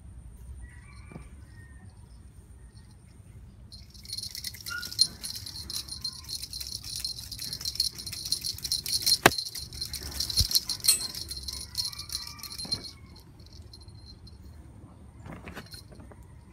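Rapid jingling of a cat fishing-rod teaser toy being shaken above the kittens, starting about four seconds in and stopping about nine seconds later. A few short kitten mews come before and after it.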